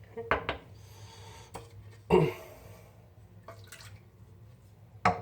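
Water splashing into a 3D-printed shave bowl to warm it, with several short knocks as the bowl is handled; the loudest splash comes about two seconds in and a sharp knock near the end.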